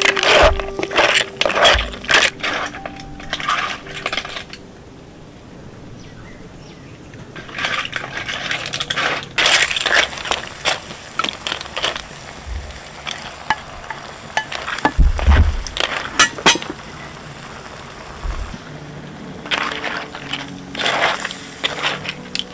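Clam shells clattering and scraping against each other and a clay cooking pot as a wooden spoon stirs them. The clattering comes in bursts, with a quieter stretch of a few seconds near the start and a heavier thud and clatter near the middle.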